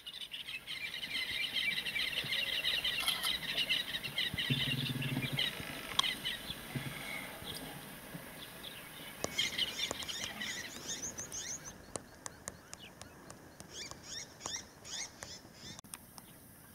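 Many small birds chirping and twittering in quick runs of high notes, densest in the first few seconds, then in further bursts later on. A short low hum comes about four to five seconds in.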